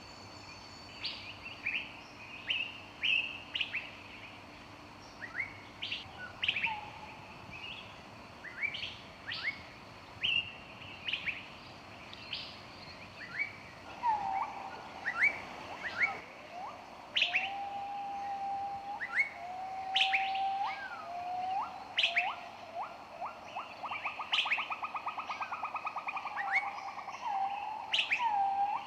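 Several songbirds chirping and singing in a forest, with short, sharp, high chirps throughout. From about halfway in, a lower whistled song joins with drawn-out notes, and a rapid trill runs near the end.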